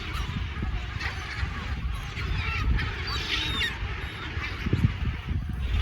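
A flock of gulls calling, many short overlapping cries at once, over a steady low rumble.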